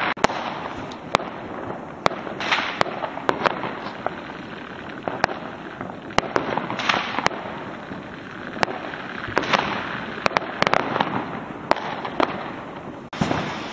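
Fireworks and firecrackers going off: scattered sharp bangs, some in quick clusters, with stretches of crackling.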